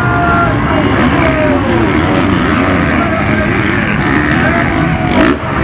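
Several motocross motorcycle engines revving up and down at the same time, their pitches rising and falling over one another. There is a brief burst of noise about five seconds in.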